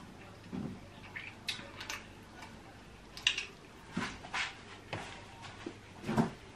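Quiet eating sounds: a scattering of soft clicks and taps from cutlery and chewing, a few of them louder.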